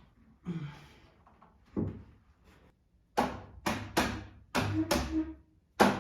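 Solid pine bed-frame parts knocking against each other as they are fitted together: a couple of duller knocks, then about six sharp wooden knocks in quick succession over the last three seconds.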